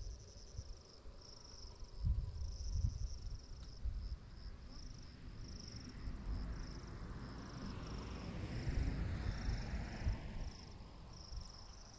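Crickets chirping in a steady pulsing trill, with a car passing on a road in the distance, swelling and fading in the middle, and low thumps on the microphone about two seconds in.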